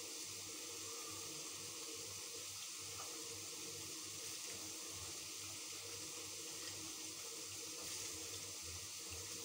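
A steady, even hiss with a faint low hum underneath.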